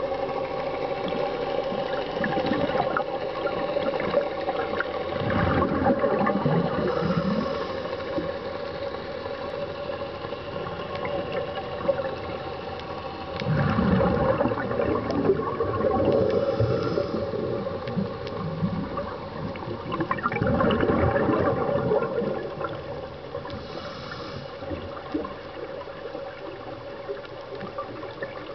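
A scuba diver's breathing heard underwater: exhaled bubbles gurgle up from the regulator in surges about every seven seconds, over a steady hum.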